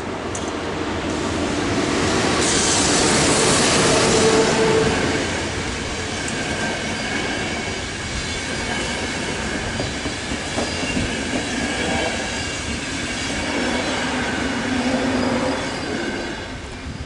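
Passenger train passing close by: wheels rumbling on the rails with a high squeal. It swells to its loudest about three to four seconds in, holds steady as the coaches go by, and fades near the end.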